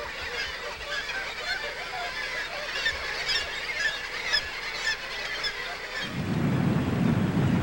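A flock of birds calling, many short honking or squawking calls overlapping. About six seconds in, a louder low rushing noise comes in beneath them.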